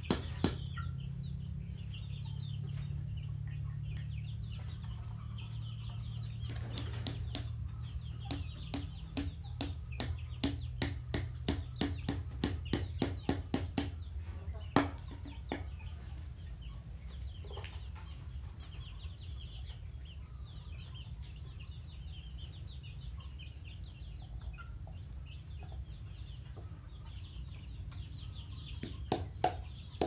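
Hammer striking a bamboo frame in runs of quick blows, about three a second, mid-way and again near the end. Young chickens cheep and cluck throughout.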